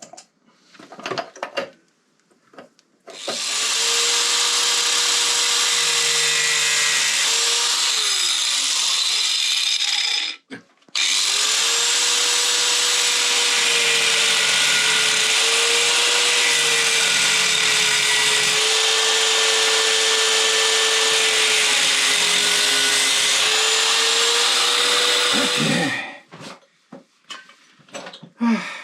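Power grinder grinding down an aluminium lip so the LED headlight will fit. It runs in two long passes, about seven seconds and then about fifteen, with a brief stop between, and its whine wavers slightly under load. Short handling knocks come before and after.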